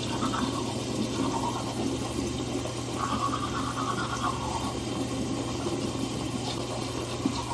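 Bathroom sink tap running steadily into the basin during toothbrushing, with a steady low hum underneath.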